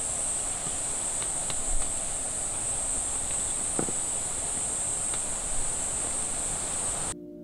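Steady high-pitched drone of summer insects over a broad outdoor hiss, with a few faint ticks, cutting off suddenly near the end.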